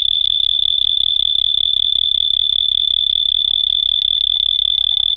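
A steady, high-pitched electronic whine from a GoPro camera's audio fault, held at one pitch and loud enough to drown out everything else, with a low pulsing hum underneath.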